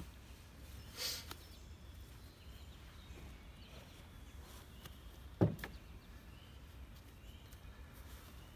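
Quiet riverside ambience with a low wind rumble and faint bird chirps; a short rustle about a second in, then a single thump about five and a half seconds in as a dead wild turkey is lifted out of a canoe.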